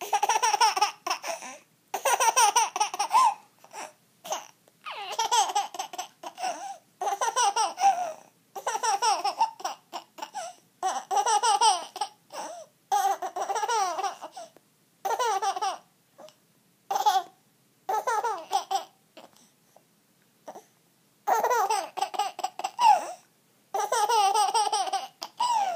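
Nine-month-old baby laughing in repeated high-pitched bouts, each about a second long, with short pauses between them.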